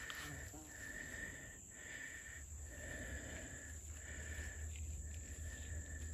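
Insects chirping outdoors: a high tone repeated in short phrases of under a second, with brief gaps between them.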